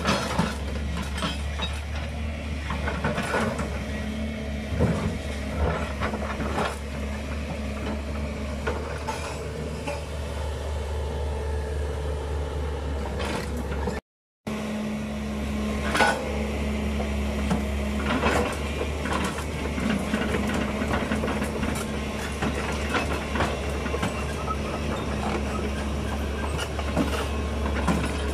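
Sumitomo SH210 hydraulic excavator's diesel engine running steadily under work, with scattered knocks and rattles over it. The sound cuts out for a moment about halfway.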